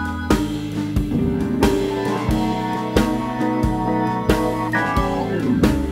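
Music with a steady drum beat over a bass line and held chords.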